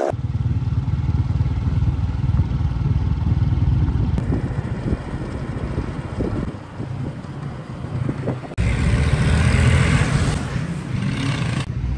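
Honda motorcycle engine running steadily as the bike is ridden, a low rumble heard from the rider's position. For about three seconds near the end a louder hiss joins it, then stops abruptly.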